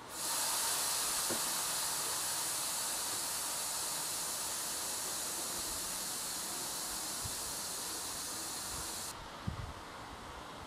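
A steady high hiss that starts suddenly and cuts off abruptly about nine seconds in, followed by a single short thump.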